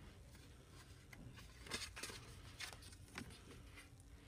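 Near silence, broken by a few faint, short rustles and taps of cardstock cards being picked up and laid down on a wooden tabletop.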